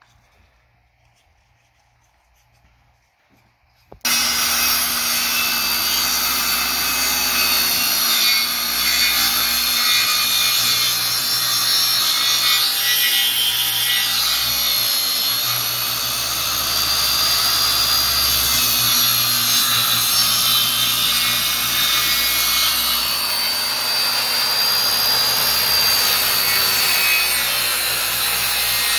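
Skilsaw 2.3 hp handheld circular saw cutting through a sheet of plywood. The blade noise and a high motor whine start suddenly about four seconds in and then run on steadily without a break.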